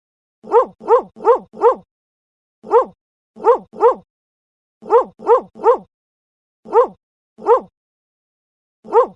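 A dog barking in short, sharp barks, some single and some in quick runs of two to four, about thirteen in all, with dead silence between them.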